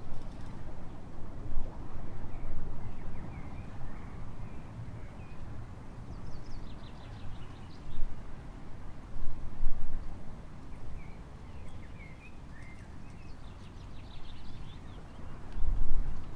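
Park ambience beside a lake: light birdsong of scattered short chirps and a few quick high trills over a low, uneven rumble.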